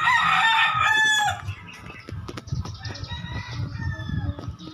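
A rooster crowing: one loud crow lasting about a second and a half, then fainter crowing over the next few seconds.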